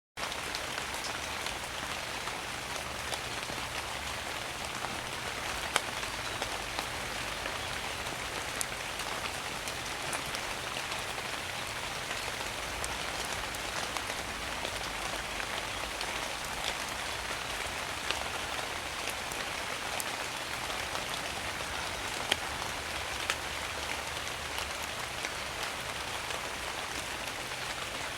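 Steady rain heard from under a tree: an even hiss of rain falling through the leaves, with scattered single drops landing close by, two of them a little louder, about six seconds in and near the end.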